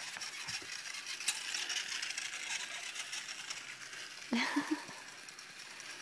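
Small battery-powered toy train running around a plastic track loop, its motor and gears whirring with fine rapid clicking of the wheels on the track. A short voice sound breaks in a little over four seconds in.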